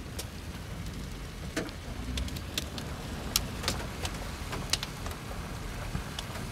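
Steady low rumble of a car, with about a dozen sharp, irregularly spaced ticks of raindrops striking the vehicle.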